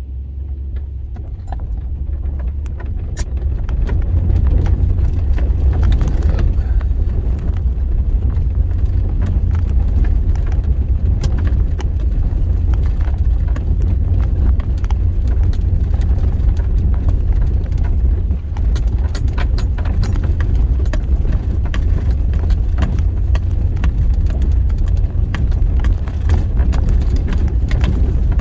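A 4x4 vehicle driving over a rough, bumpy dirt road: a loud low rumble with frequent rattles and knocks as it jolts over the ruts, building up over the first few seconds.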